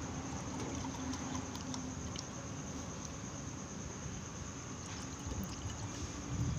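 Orange drink being poured from a plastic bottle into a stainless steel tumbler, a steady trickle of liquid, over a constant high-pitched whine and low hum in the background.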